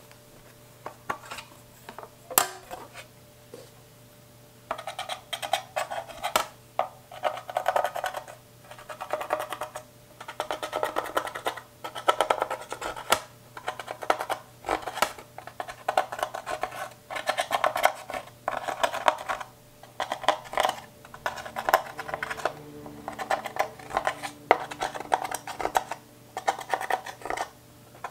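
A metal pick scraping and crumbling pressed eyeshadow out of a plastic palette's pans: bursts of rapid scratchy crackling with sharp clicks. It comes in after a few isolated taps, about five seconds in.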